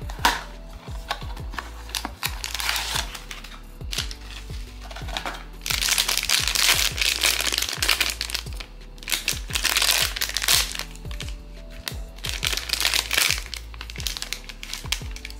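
Blind-box inner foil bag crinkling in several loud spells as it is handled and torn open at the top, after a sharp click from the cardboard box flap near the start. Background music with a steady beat underneath.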